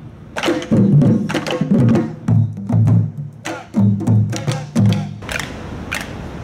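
Percussion music: drums struck in a rhythm with low, ringing beats, stopping about five seconds in.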